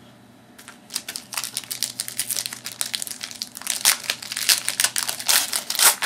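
Plastic-foil trading card pack wrapper being crinkled and torn open by hand, with irregular crackling that starts about a second in and grows louder near the end.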